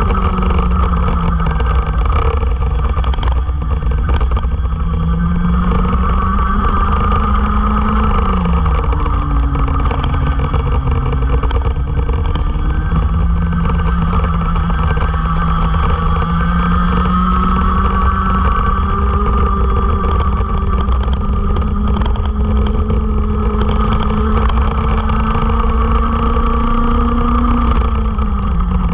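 Go-kart engine heard onboard at racing speed, its pitch climbing slowly on the straights and dropping sharply off the throttle about eight seconds in and again near the end, over a constant low wind rumble on the microphone.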